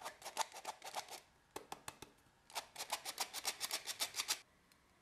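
Stainless steel hand flour sifter being worked over a bowl: its agitator scrapes the mesh in rapid, rhythmic metallic clicks. The clicks come in two runs with a short pause in between, the second run faster and steadier.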